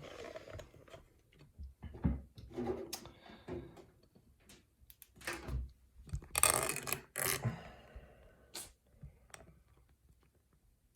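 Handling noise from a challenge padlock and lock-picking tools: scattered small clicks, knocks and rustles, with a louder cluster of rattles about six to seven seconds in.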